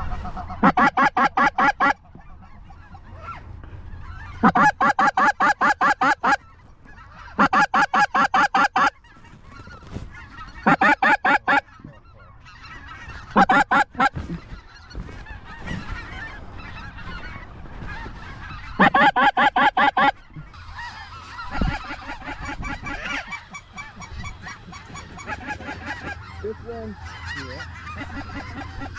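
Snow goose calls sounded in six loud bursts of rapid, evenly spaced notes, each lasting a second or two, close to the microphone. From about twenty seconds in, the overlapping calls of a large flock of snow geese circling overhead take over.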